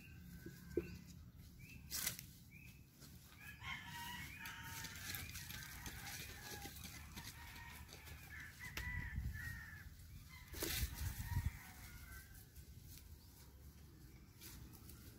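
Rooster crowing, with some hen clucking, and a couple of sharp knocks, one about two seconds in and one about two-thirds of the way through.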